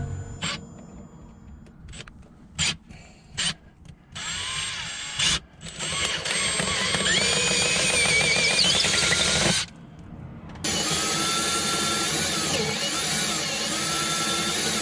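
Power drill running in two long runs of several seconds each, with a short pause between, as it drills a hole for the booster's cable; a couple of sharp knocks come before the first run.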